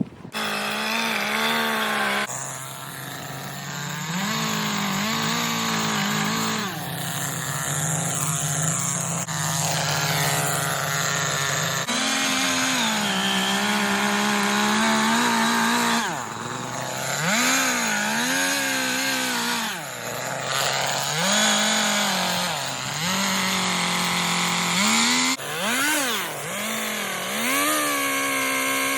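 Chainsaw running and cutting into wood. The engine pitch drops and climbs back several times, more often in the second half, as the saw works through the cuts.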